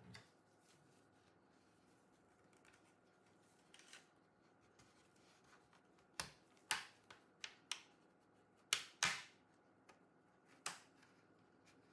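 Plastic retaining clips of an MSI Thin A15 B7V laptop's bottom cover snapping loose as a plastic pry pick works along the edge. About eight sharp clicks come over the second half, the loudest two close together.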